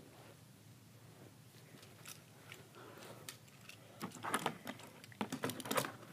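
Faint handling noise of a plastic toy robot figure being gripped and moved by hand: nearly quiet at first, then a quick run of small plastic clicks and rubbing from about four seconds in.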